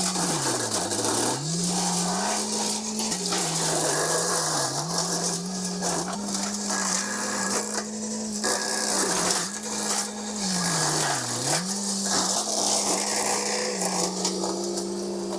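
Engine running at high speed while cutting wood and brush, its pitch dipping sharply several times as it bogs under load and then recovering, over a steady hiss of cutting.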